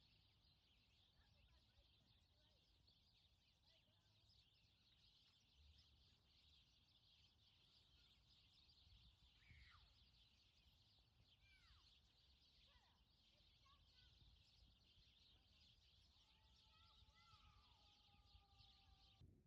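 Near silence: faint outdoor ambience with a steady high-pitched hiss and a few faint bird chirps around the middle.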